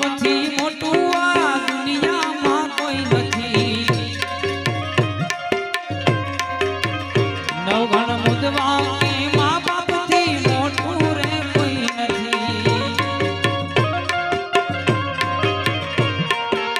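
Live Gujarati folk-devotional music: tabla playing a fast, steady rhythm under a melody of sliding notes.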